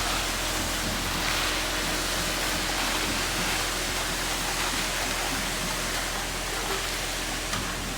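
Steady rushing noise of a concrete pour from a mixer truck, with wet concrete running out down the chute.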